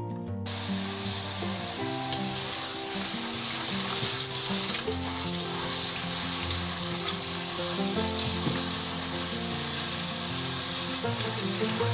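Tap water running steadily onto a bunch of green onions in a stainless steel sink as they are rinsed by hand, starting about half a second in.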